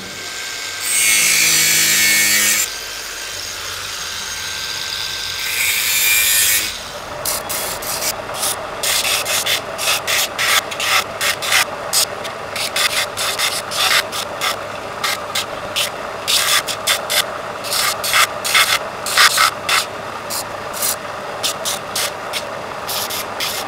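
A bench grinder grinds metal in two loud bursts of a couple of seconds each. Then a small steel blade is rubbed back and forth by hand on the abrasive belt of a belt sander: a long run of quick scraping strokes, a few a second.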